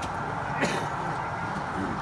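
Steady background noise of a busy exhibition hall, with one sharp click a little over a quarter of the way in.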